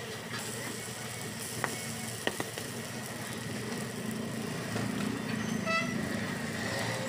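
Uthappams sizzling on a flat iron griddle, with a couple of sharp clicks of a metal spatula against the griddle about two seconds in. From about halfway a motor vehicle's low hum swells, and a brief high tone sounds near the end.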